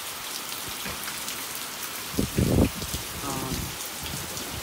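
Rain falling steadily, a continuous patter and hiss, with a brief loud low rumble about halfway through.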